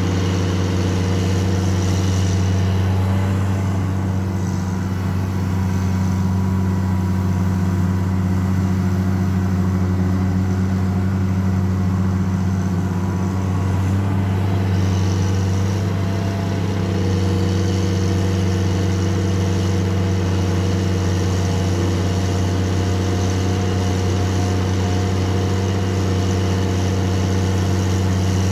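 Caterpillar 336D L ME excavator's six-cylinder C9 diesel engine running steadily with a deep drone while the machine digs and swings its bucket.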